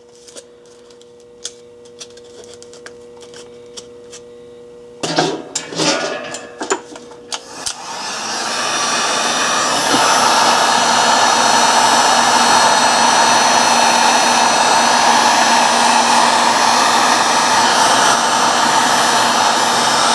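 A few handling clicks and rustles, then a heat gun switches on about eight seconds in and runs as a steady, loud blowing whoosh on its high setting, shrinking heat-shrink tubing over a battery pack.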